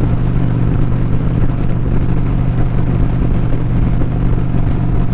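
Motorcycle engine running at a steady cruise on the open road, with a constant rush of wind noise over it.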